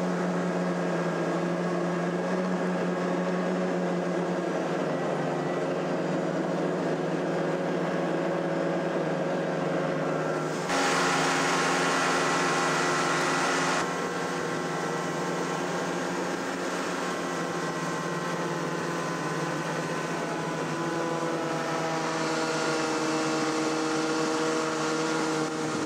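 Snowmobile engine running steadily under way, its pitch shifting a little as it goes. About ten seconds in, a louder rush of noise rises over it for roughly three seconds, then drops back.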